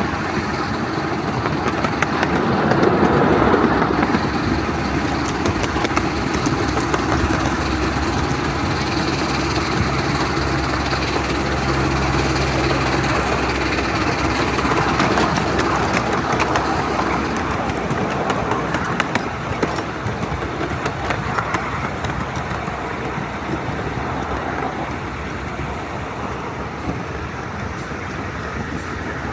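A 7¼-inch gauge miniature steam train running along the track: a steady rolling rumble with scattered sharp clicks, easing off somewhat in the last third.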